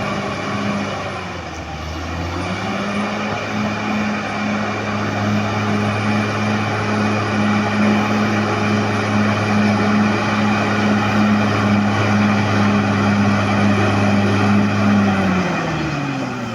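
Caterpillar D6R XL bulldozer's diesel engine running steadily at high revs. The pitch sags briefly about a second in, then holds, and falls away near the end as the revs drop.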